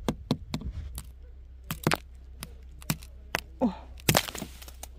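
Crust of ice frozen onto a car's body cracking and snapping as it is knocked and broken off by hand: about a dozen sharp cracks, irregularly spaced, the loudest near the end.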